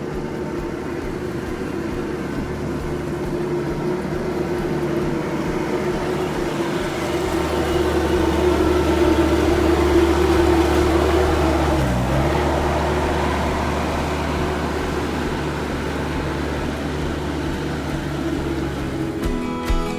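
Engine running steadily, growing louder toward the middle and then easing off, with a brief drop in pitch about twelve seconds in.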